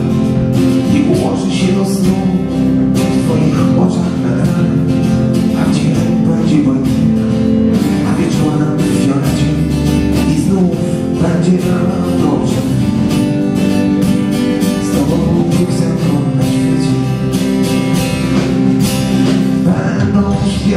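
Live band playing an instrumental break in a pop song, with electric and acoustic guitars to the fore.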